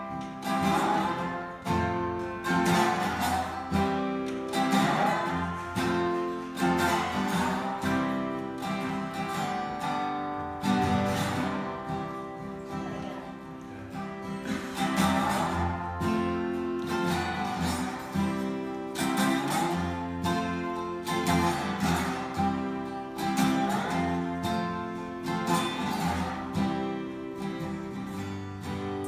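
Acoustic guitar strummed in a steady rhythm, without singing.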